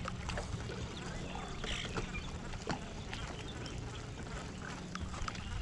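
Birds calling in short, scattered calls over a low steady rumble.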